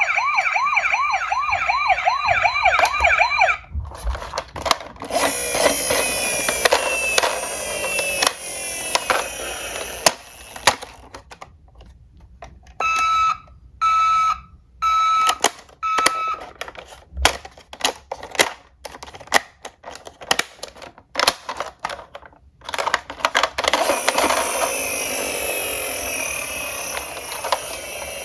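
Toy emergency-vehicle siren: a fast warbling wail, later four short beeps, mixed with the clicking and clattering of diecast toy cars rolling and knocking together.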